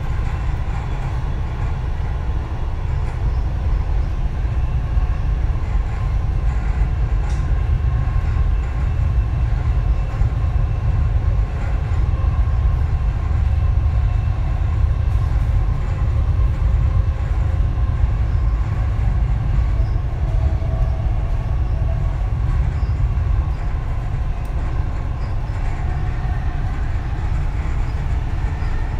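Dubai Metro Red Line train running at speed along the elevated track, heard from inside the car: a steady, deep rumble with a faint higher hum above it.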